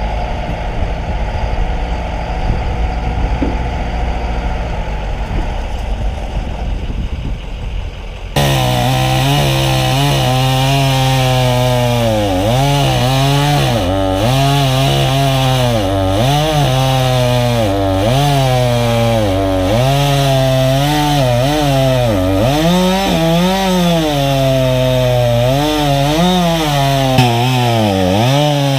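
Low engine and road rumble from a vehicle on the move, then about eight seconds in an abrupt cut to a Husqvarna chainsaw cutting wood. The saw's pitch repeatedly dips as it bogs into the cut and climbs back as it revs up.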